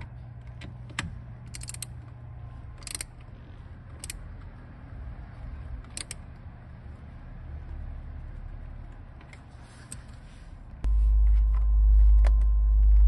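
Small metal clicks and taps as a steering-wheel nut and washer are handled and fitted at the wheel hub. About eleven seconds in, a sudden loud low rumble starts and holds.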